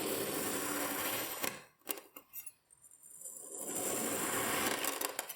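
Kinetic sand being crushed or cut, a grainy crunching and crackling in two long passes with a few short crackles between them.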